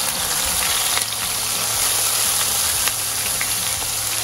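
Marinated yellowfin tuna pieces searing in very hot oil in a frying pan on high heat: a steady sizzle with a few sharp pops of spitting oil.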